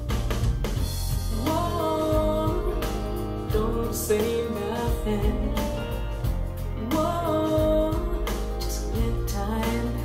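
A woman singing over a band with bass, guitar and drums, played back through a pair of Canton GLE 436 bookshelf speakers and picked up by the microphone in the room. The vocal comes in two phrases over a steady bass line.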